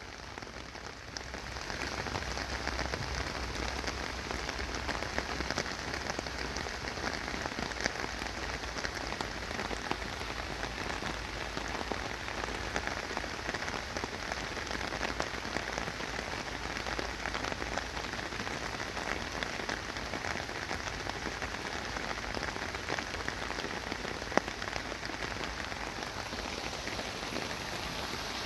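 Steady rain falling on a surface, a dense patter of drops that builds up about a second in and then holds even. One sharper tap stands out a few seconds before the end.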